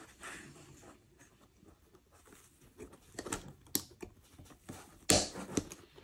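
Small clicks and taps of plastic and metal parts being handled and pressed together on an HO-scale model locomotive's truck, with a sharper click about five seconds in.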